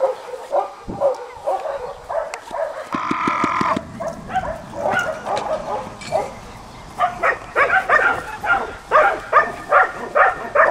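A dog barking over and over in short, high barks. About seven seconds in the barks get louder and settle into a steady pace of about two a second.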